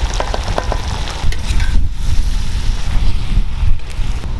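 Wind rumbling on the microphone, with scattered clicks and scrapes over it.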